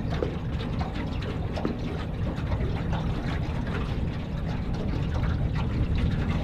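Small boat's motor running steadily at low speed, with water lapping at the hull and wind rumbling on the microphone.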